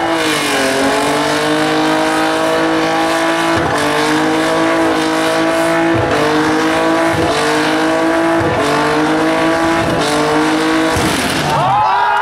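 Twin-engine VW Passat burnout car held at high revs while its tires spin and smoke in a burnout. The engine note stays steady with brief dips about every second and a quarter, then drops and climbs again near the end.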